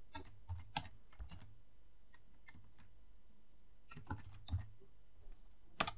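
Computer keyboard typing: faint, short runs of key taps, with one sharper click near the end.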